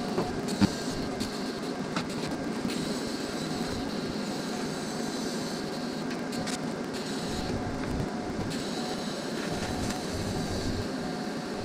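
TIG welding arc running steadily as a stainless steel pipe is welded into a plate, with a faint high whine over the noise and a few light ticks in the first couple of seconds.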